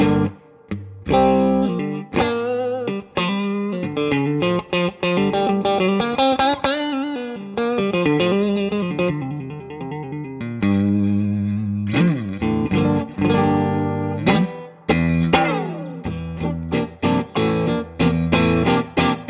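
Electric guitar played clean through a Soldano-designed Jet City JCA2112RC 20-watt tube combo amp: ringing chords and picked single-note lines, with quick repeated picked notes near the end.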